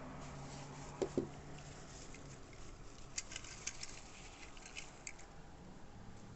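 Small handling noises from unpacking: two light knocks about a second in, then a run of small sharp clicks and ticks.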